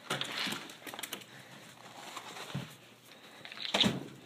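Clicks and knocks of a front door's brass knob and deadbolt being worked as the door is opened, with a louder sharp thud near the end.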